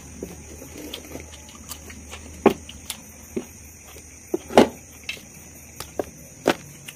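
Eating by hand from a steel plate: fingers mixing rice on the plate and chewing, with a handful of sharp wet clicks and smacks, the loudest a little past the middle, over a steady low hum.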